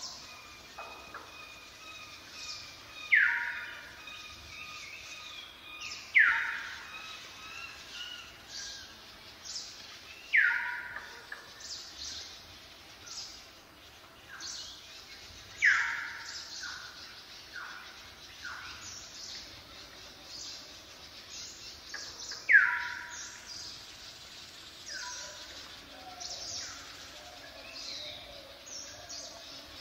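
Birds calling: one bird repeats a loud call that slides downward, about every three to seven seconds, over a scatter of short, high chirps from other birds.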